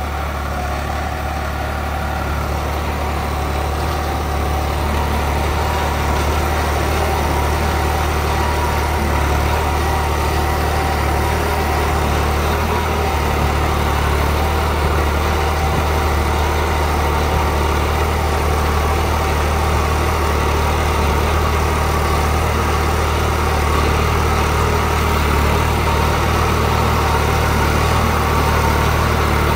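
New Holland 3630 TX tractor's three-cylinder diesel engine running steadily under load in first gear, pulling a cultivator through dry soil. It grows a little louder as the tractor comes closer.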